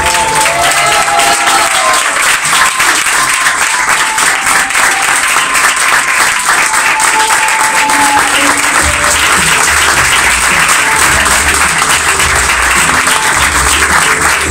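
Audience applauding steadily over guitar music, with low bass notes joining about nine seconds in.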